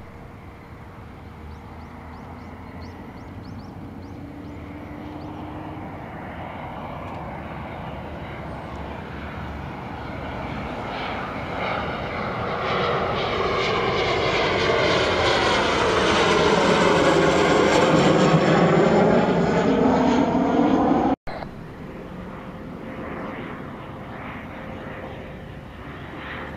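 Kawasaki T-4 jet trainer's twin turbofan engines on landing approach with gear down. The jet noise grows steadily louder as the aircraft closes in, with a sweeping whoosh near its loudest. After a sudden cut about 21 seconds in, another T-4 is heard approaching, much quieter.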